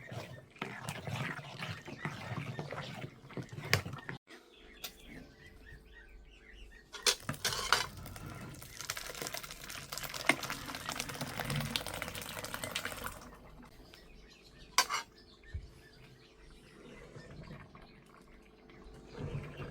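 Water running or pouring for several seconds, with sharp knocks and clatter of dishes around it.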